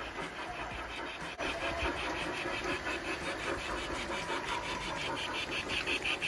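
Garden-scale model trains running on outdoor track: a steady motor and wheel hum, joined about a second and a half in by a fast, even ticking, about five a second.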